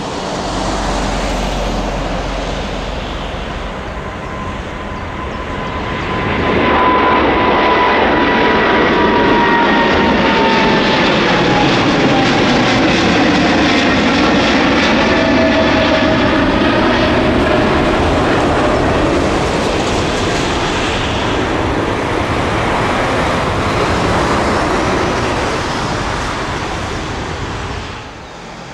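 Boeing 777-300ER's GE90-115B turbofans at takeoff thrust as the jet lifts off and climbs past. The roar swells about six seconds in, with a fan whine that falls in pitch as it goes by, then stays loud before dropping off near the end.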